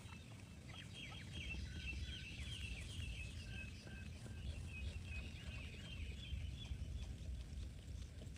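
Birds chirping in quick series of short, high calls, busiest in the first few seconds, over a low steady rumble.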